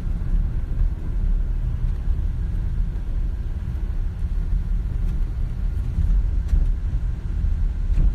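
Steady low rumble of a car's road and engine noise, heard from inside the cabin of a moving car through a phone microphone.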